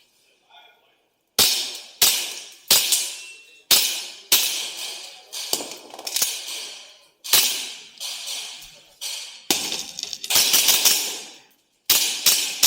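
WE G17 gas blowback airsoft pistol firing about a dozen shots at an uneven pace, each a sharp crack trailing off over about half a second.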